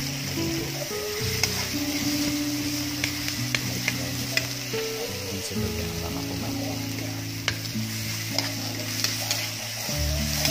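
Chopped onion and red and green chilies sizzling in hot oil in a steel wok, stirred with a metal spatula that clicks and scrapes against the pan.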